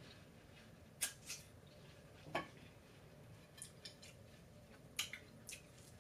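Quiet eating sounds: a handful of short, crisp clicks and crunches, spaced a second or so apart, from chewing watermelon and handling pineapple on a plate.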